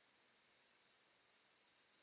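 Near silence: faint steady hiss of room tone.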